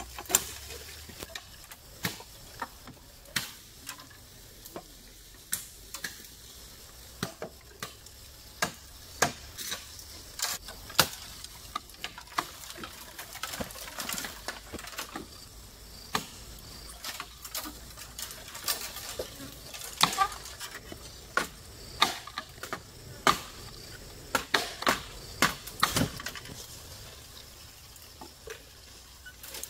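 Irregular sharp knocks and clicks of bamboo being worked by hand, about one a second, a few louder strikes toward the middle.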